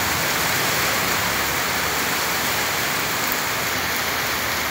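Heavy rain pouring down steadily, an even, unbroken hiss of falling rain.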